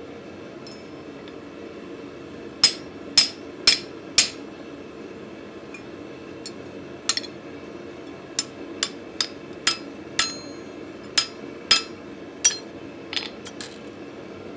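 Sharp, ringing hammer blows on a hand chisel held against a mild steel bar on the anvil, cutting chiselled decoration. There are four quick strikes a few seconds in, then a single blow, then a longer run of about eight strikes roughly two a second, ending in a few lighter taps.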